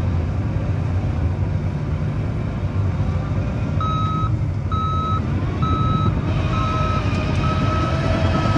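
Diesel engine of heavy earthmoving machinery running, with a backup alarm starting a little under halfway through: a single-pitched beep repeating about once a second, six times. The engine gets louder in the second half.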